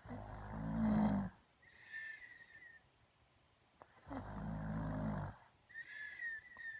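Loud snoring like a cartoon bear: two long snores about four seconds apart, each followed by a quieter breath with a high whistle in it.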